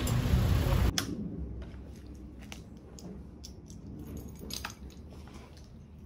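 Loud outdoor street noise cuts off abruptly about a second in, leaving a quiet small room with scattered light taps and clicks from footsteps and handling on a hard floor.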